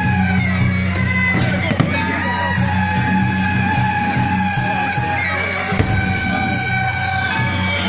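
Loud music with a steady beat of about three to four strokes a second and held melody lines, over crowd noise.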